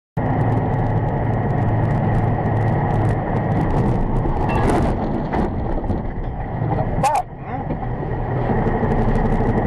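Semi-truck cab noise: engine and road rumble with a steady high whine while the truck slows hard from about 40 mph. Two sharp knocks stand out, one about halfway through and one about two-thirds through, the second with a short wavering tone.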